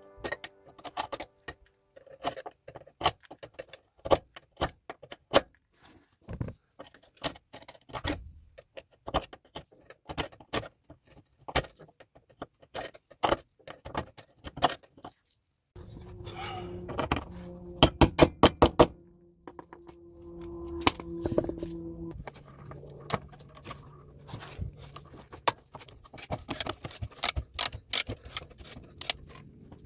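Hand tools scraping, tapping and clicking against the rusty steel of a car's underbody bracket: a long string of sharp metallic clicks and knocks, with a quick run of louder clicks about two-thirds of the way through.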